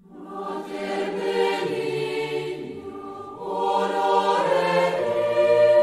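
Choir of nuns singing a slow chant in long held notes, entering suddenly at the start and swelling in two phrases.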